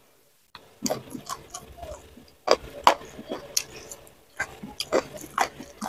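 Eating mouth sounds: chewing and wet lip smacks, a stream of irregular sharp clicks starting about half a second in, as a mouthful of rice, fried fish and sambal is eaten by hand.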